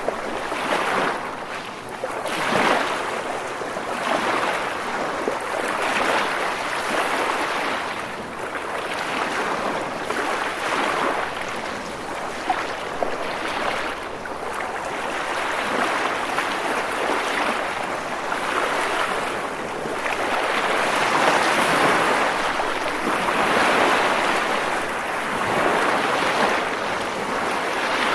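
Sea waves breaking against rocks, a continuous rushing wash of surf that swells and eases every few seconds.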